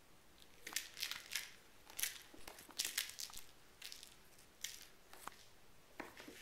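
A kitten scrabbling and playing at a carpeted cat tree: a run of short, irregular scratchy, crinkling sounds, thickest from just under a second in to about three seconds in, then a few scattered ones.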